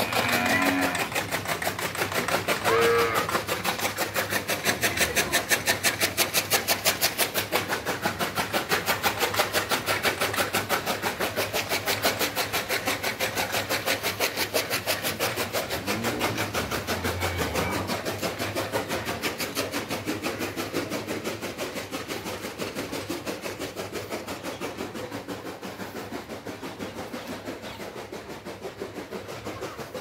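A machine running with a fast, even clatter, slowly fading toward the end. A few short animal or bird calls sound in the first few seconds.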